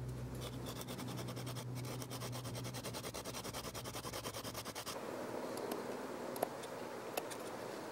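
Fast, even back-and-forth rasping of a wooden stick rubbed against rock. About five seconds in it gives way to looser scraping of a stone tool carving a notch into a wooden hand-drill hearth board, with two sharp clicks.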